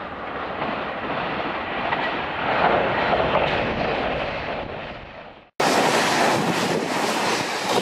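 JR Shikoku 2000 series diesel limited-express train going by a station platform: engine and wheel noise builds as it comes in, peaks about three seconds in and fades. After a sudden cut about five and a half seconds in, the cars go by close and louder.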